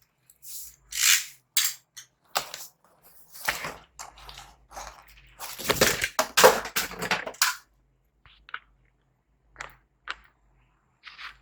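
Packaging around a replacement laptop screen being handled and opened: irregular crinkling and rustling bursts for the first seven seconds or so, then a few faint short taps.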